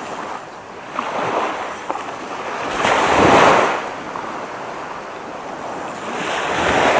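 Small waves washing up onto a sandy beach: one surge swells loudest about three seconds in and another builds near the end.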